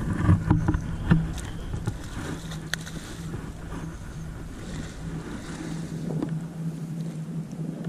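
Wind rumbling on the microphone, heaviest in the first couple of seconds, over a steady low drone, with a few faint clicks.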